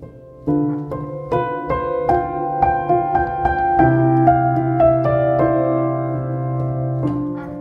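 Slow instrumental piano music: single notes struck one after another, about two a second, over a low note held through the middle.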